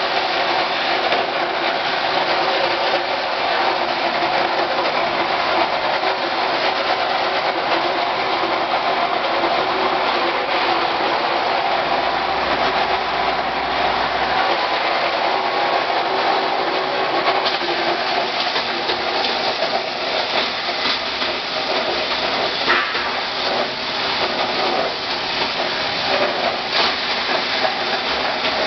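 Pulian A-400 15 hp plastic granulator with a 10 mm screen running loud and steady while red plastic parts are fed into it, its cutting chamber chopping the plastic. Sharp cracks and clatter come more often in the second half, and the meter reads about 94 to 98 dB.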